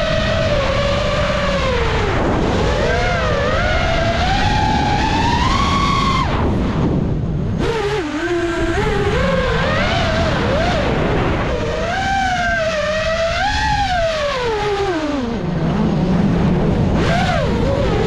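A 5-inch freestyle FPV quadcopter's brushless motors and propellers whining loudly over steady rushing air. The pitch climbs and falls with each throttle punch and chop, dropping sharply about six seconds in and again near the end before rising once more.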